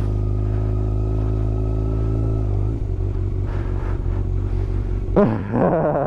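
Yamaha YZF600 sport bike's inline-four engine idling steadily at a standstill; its note changes and roughens about two and a half seconds in. A short wavering sound comes near the end.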